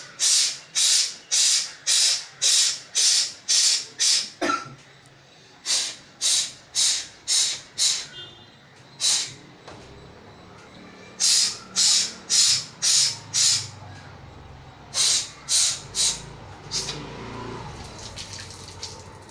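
Forced 'sneezes' through one nostril: sharp, hissy nasal blows, about two a second in runs of five to ten with short pauses, clearing the salt water out of the nose after jala neti rinsing. Near the end the blows turn into a fainter, more continuous hissing.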